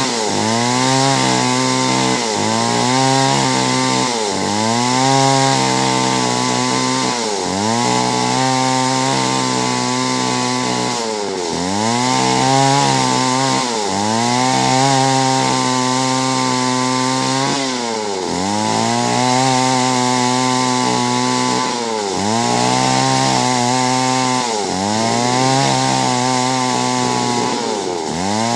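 Chainsaw cutting clove tree wood, running hard the whole time, its engine pitch sagging again and again as the chain bites into the cut and then climbing back up.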